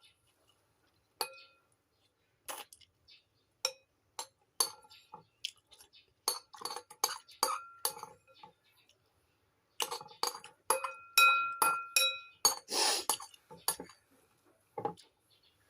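A utensil clinking against a ringing dish: scattered sharp taps, each leaving a short ring, sparse at first and coming thick in the second half, with a brief noisy rush a little before the end.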